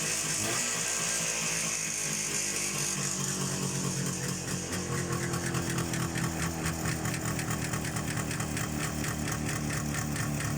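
Jawa 634 two-stroke twin engine running. The revs drop about three seconds in and it settles into an even, pulsing idle, with the piston knock that the engine is known to have.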